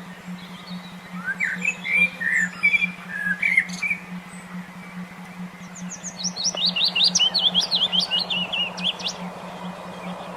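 Songbird singing in two phrases, a burst of varied chirps and then a fast run of high sweeping notes, over a steady low pulsing tone of a brainwave-entrainment therapy track.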